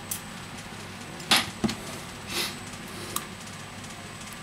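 A few sharp clicks and a light knock from small repair tools, a precision screwdriver and tweezers, handled around an opened smartphone. The loudest knock comes about a second and a half in, with a soft rustle shortly after.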